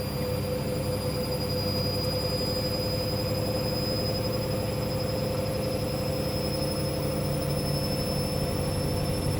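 Hoover washing machine in its spin on a 90° cotton cycle: a steady drum rumble under a high motor whine that creeps slowly upward in pitch.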